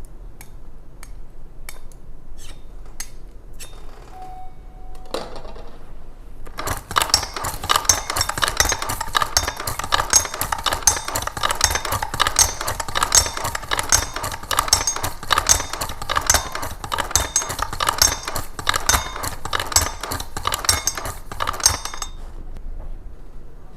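Small hard metal parts clicking and clinking during hand letterpress work. There are a few sparse clicks at first, then from about seven seconds in a dense, rapid clatter with louder clinks about every half second, which stops shortly before the end.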